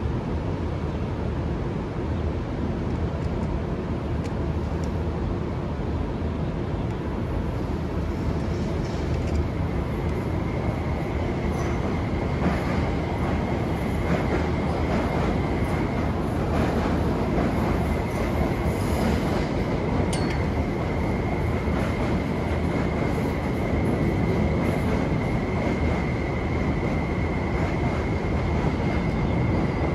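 MTR electric trains running over the rails: a steady rumble of wheels on track. A steady high whine joins in about twelve seconds in, along with a few short clicks.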